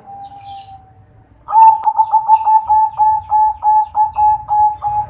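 Zebra dove (perkutut), a local-and-Bangkok crossbreed, cooing. One drawn-out whistled note comes first, then after a short pause a fast run of about a dozen short, even coos, three or four a second. Faint high chirps of small birds sound over it.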